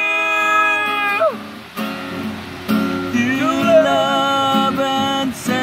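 A man sings to a strummed acoustic guitar. A long held note falls away about a second in, there is a short stretch of mostly guitar, and then the singing picks up again.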